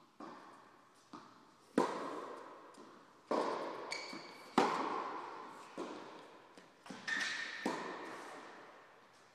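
Tennis ball being struck by rackets and bouncing on the court in a rally: about eight sharp knocks over nine seconds, each ringing on with a long echo in the big hall. Two short shoe squeaks on the court surface, about four seconds in and near the end.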